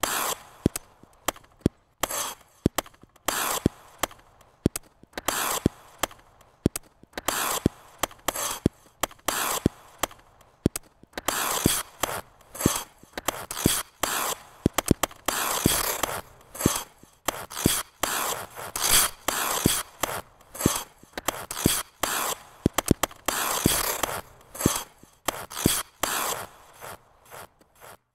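Figure skate blades on ice: sharp taps and clicks mixed with short scraping strokes in an uneven rhythm. From about eleven seconds in, the scrapes grow longer and denser, then thin out to scattered clicks near the end.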